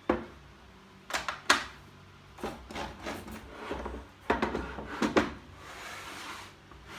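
Pieces of wood handled on a wooden crosscut sled: several sharp knocks as timber is set down, with rubbing and scraping as it slides between them.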